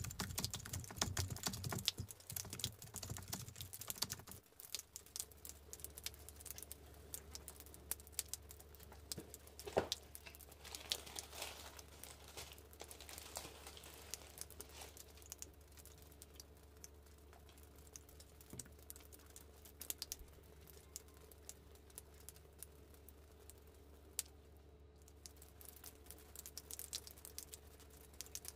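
Faint crinkling of tissue paper and small taps and clicks as a sneaker is unwrapped from a cardboard shoe box, with a single sharper tap about ten seconds in. A louder low sound dies away about four seconds in, and a steady low hum runs underneath after that.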